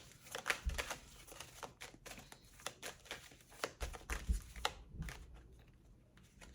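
Tarot cards being shuffled by hand: a run of quick, soft card clicks and rustles that dies down about five seconds in.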